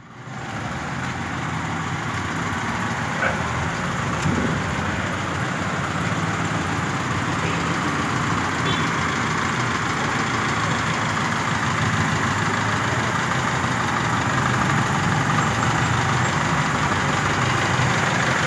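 Light truck's engine running at low speed as the truck creeps closer, growing gradually louder.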